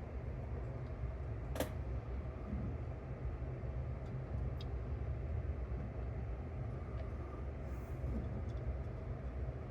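Small clicks from cassette deck mechanism parts being handled during reassembly, the sharpest about a second and a half in, over a steady low rumble of background noise.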